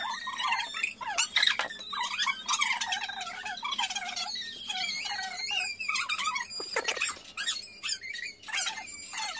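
Women's voices in high-pitched chatter and squeals, with a few sharp bursts.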